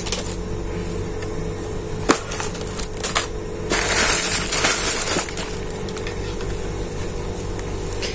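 Clear plastic bags rustling and crinkling as a time-attendance terminal and its bagged accessories are handled and lifted from their box, with sharp knocks from the hard plastic casing about two and three seconds in. A steady low hum sits underneath.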